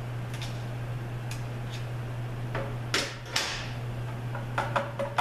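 Parts and tools being handled during the teardown of a Subaru 4AT automatic transmission: a few light ticks, two sharper clanks about three seconds in, and a quick run of clicks with a brief ringing tone near the end, over a steady low hum.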